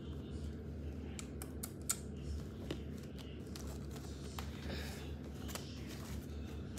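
A T-shirt and its tag being handled: fabric rustling and scattered small clicks, the sharpest about two seconds in, over a steady low room hum.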